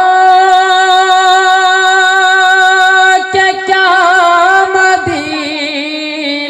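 A man singing a naat into a microphone, drawing out long held notes: one steady note for about three seconds, a brief break, another held note, then a lower held note about five seconds in.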